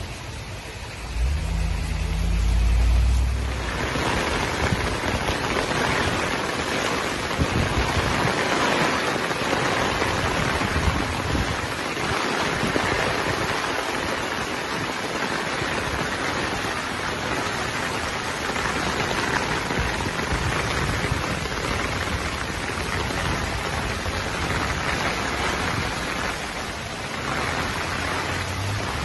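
Steady rain falling on foliage and garden beds, with an even hiss. In the first few seconds a low rumble is the loudest sound, before the rain comes in fully.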